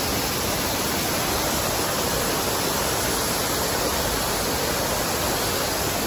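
Shallow, rocky mountain stream rushing over boulders in small rapids: a steady, even rush of water.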